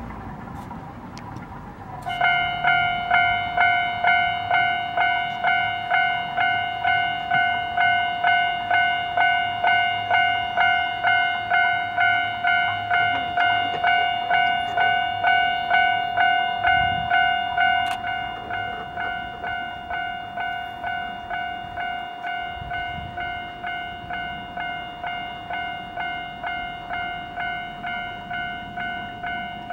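Railway level-crossing warning bell ringing: an electronic ding repeating steadily about one and a half times a second, starting about two seconds in and becoming quieter a little past halfway. It signals an approaching train.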